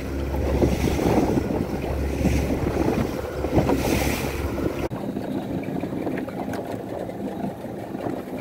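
Fishing boat's engine running with wind and water rush on the microphone. About five seconds in, the low engine drone drops away abruptly, leaving wind and water noise.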